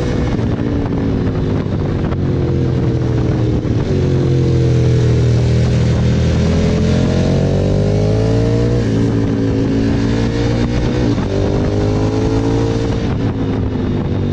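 KTM 1290 Super Adventure S V-twin engine under way, its pitch rising and falling with the throttle several times and dropping suddenly about nine seconds in, over steady rushing wind and road noise.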